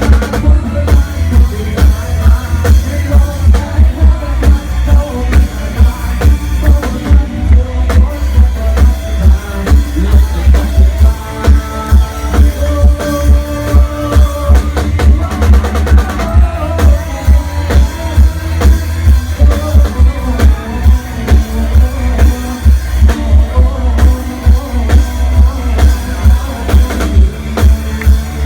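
Loud music from a Thai rot hae parade sound truck's speaker system: a steady, heavy bass-drum beat with a melody line over it.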